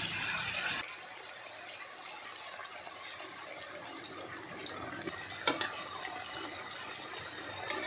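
Duck, onion and carrots sizzling in a frying pan, then, after about a second, water poured into the pan with a steady pouring sound. A metal spoon clinks against the pan twice in the second half.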